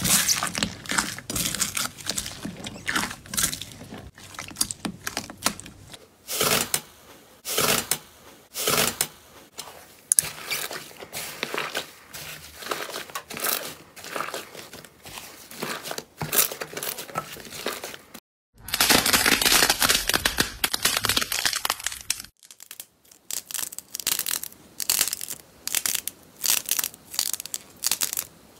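Hands squeezing, pressing and pulling slime, making quick runs of small crackles, clicks and crunches, with foam beads crunching under the slime at first. About 18 seconds in comes a few seconds of dense, continuous crackling that stops suddenly.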